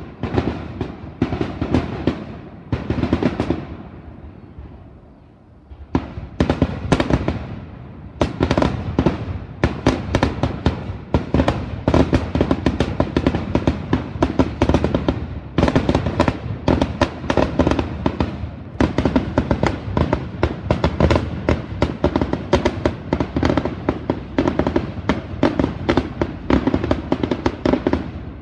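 Aerial fireworks shells bursting: a few separate bangs, a short lull, then from about six seconds in a dense barrage of rapid bangs with hardly a gap between them.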